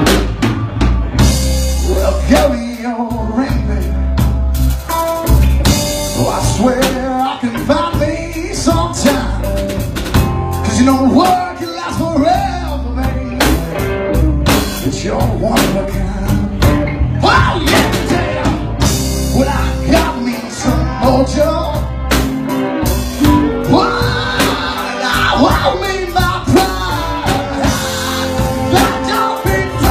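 Live blues-rock band playing an instrumental passage, with the drum kit beating under a melodic lead line that bends up and down in pitch.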